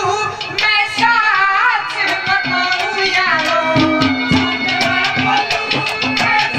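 Haryanvi ragni folk song: a male singer sings over a steady hand-drum rhythm with melodic accompaniment.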